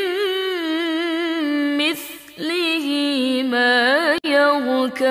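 A woman reciting the Quran in melodic murottal style, drawing out long vowels with wavering, gliding ornaments. There is a short break about two seconds in.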